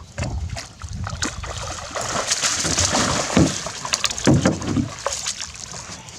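Water splashing and sloshing as a hooked northern pike is netted beside the boat, with scattered knocks; the splashing is heaviest in the middle.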